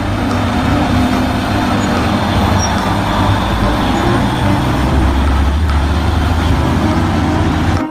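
Heavy truck engine running steadily with a deep rumble, the sound of a mining truck, which stops suddenly near the end.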